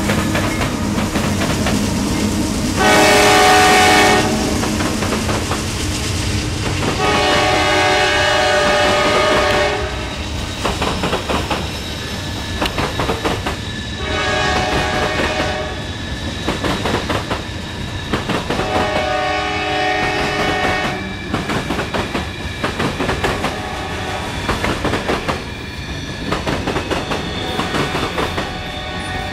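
A CSX train's horn sounding long, loud blasts in the first ten seconds, then fainter horn blasts, while the passing cars keep up a dense clickety-clack of wheels over the rail joints.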